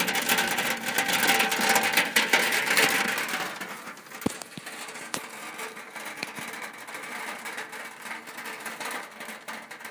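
Rain falling on a shack's roof, a dense hiss of many small drop ticks that drops to a much quieter, sparser patter about three and a half seconds in.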